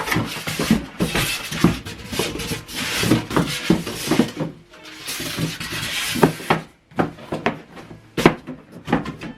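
Cardboard and plastic packaging being handled: rustling and scraping with frequent knocks and taps, easing off briefly after about six and a half seconds before a few more sharp knocks.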